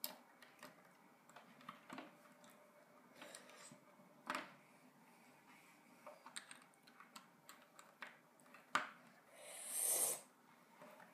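Faint scattered clicks and light knocks of small plastic Lego pieces being handled and pressed together, with a short hissing rustle near the end.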